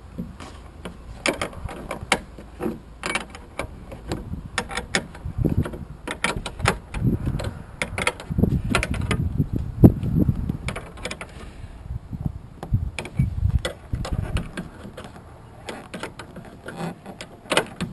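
Socket wrench ratcheting in short runs of sharp clicks, with knocks and clinks of the tool against metal, as a side mirror's mounting nuts are snugged up tight.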